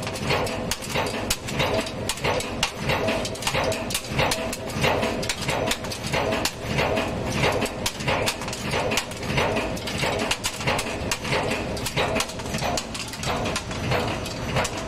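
Cold forging machine running at production speed: a steady, rapid rhythm of forming strokes under a dense metallic clatter of finished T-head bolts dropping onto the pile of parts.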